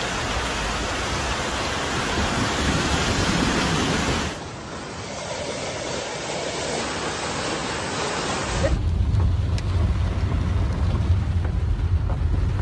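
Steady rushing noise of muddy floodwater running through a street, across two clips. About 8.5 s in it cuts to the low rumble of a car driving, heard from inside the cabin.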